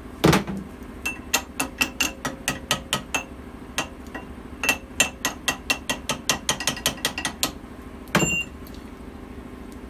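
Hand tools working metal on a wheel hub clamped in a bench vise: runs of sharp, quick, evenly spaced metallic clicks, about four or five a second, with a heavy metal knock about a third of a second in and another near the end.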